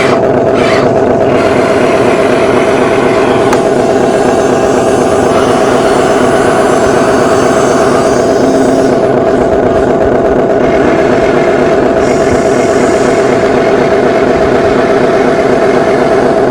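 Motors of an RC construction machine running steadily, a loud continuous mechanical drone.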